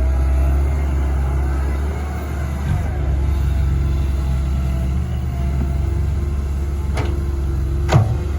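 Komatsu PC130 hydraulic excavator's diesel engine running steadily under load. Near the end come two sharp knocks about a second apart, the second one louder.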